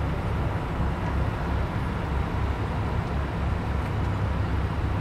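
Congested street traffic, cars idling and creeping along in a jam: a steady noise with a strong low rumble.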